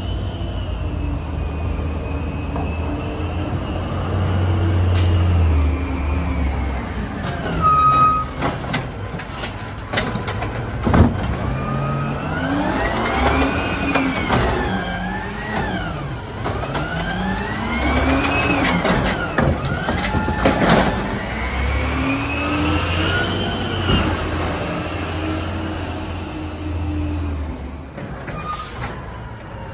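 Peterbilt 320 automated side-loader garbage truck emptying a curbside cart. The engine revs up and falls back about three times as the hydraulic arm lifts and dumps the cart, with sharp clanks from the cart and arm.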